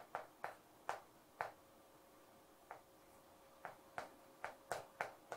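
Chalk tapping against a chalkboard while a formula is written: about a dozen faint, sharp taps at irregular spacing.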